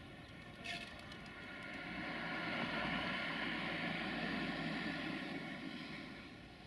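A vehicle passing by, its noise swelling and then fading over about four seconds, with a short sharp sound about a second in.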